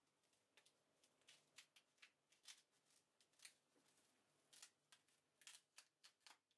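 Kitchen shears snipping through the shell of a cooked red king crab leg: a long run of quick, uneven, crisp cuts, with a short pause around the middle.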